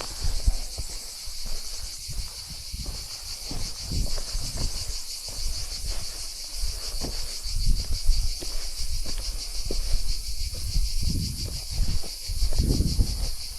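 Steady, high-pitched chorus of insects chirring with a fast, even pulse, over irregular low thuds and rumbles.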